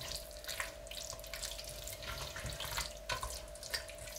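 A silicone spatula stirring raw chicken pieces through thick curry masala in a stainless steel pot: wet squelching and many short soft scrapes and ticks, over a faint steady hum.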